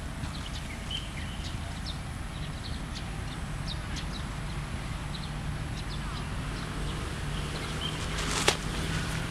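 Scattered short bird chirps over a steady low rumble, then near the end a single sharp smack of a pitched baseball landing in the catcher's leather glove.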